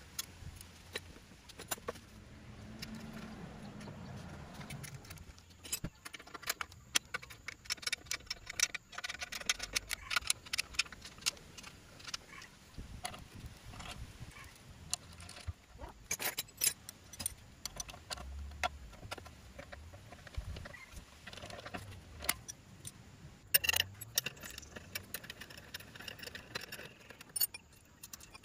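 Irregular light metal clinks and taps from hands working on the engine's chrome exhaust pipes and fittings.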